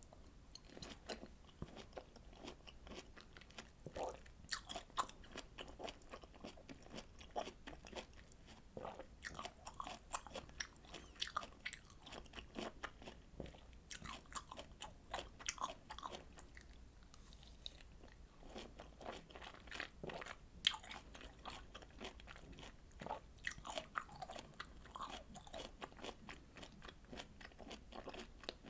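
Close-miked chewing of juicy citrus fruit segments: a quick, irregular run of soft wet crunches, smacks and small clicks, thinning briefly past the middle.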